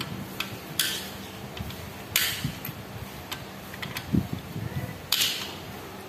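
Metal hand tools clinking and scraping against the parts of an open motorcycle crankcase, with three louder sharp clinks about a second, two seconds and five seconds in and lighter taps and knocks between them.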